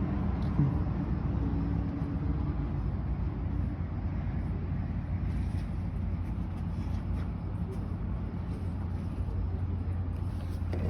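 Car running, a steady low rumble with no horn blast.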